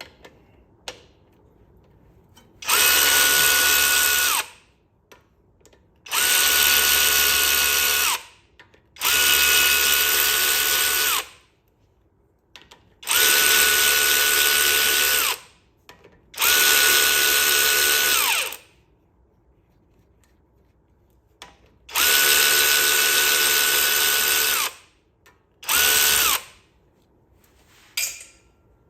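Handheld power drill-driver spinning 10 mm bolts out of a locking hub, in seven separate runs of one to two seconds. The motor winds up and winds down each time, and there are small clicks between the runs.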